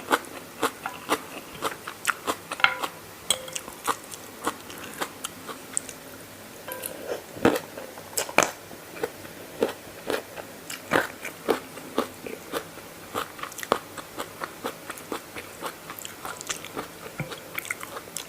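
Close-up chewing and crunching of a dry-style spicy rice-noodle salad (mee yum): a quick run of sharp crunches, two or three a second, with a few louder bites partway through.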